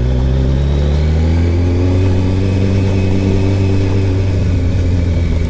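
Motorcycle engine running under way, its revs climbing over the first two seconds and then holding steady.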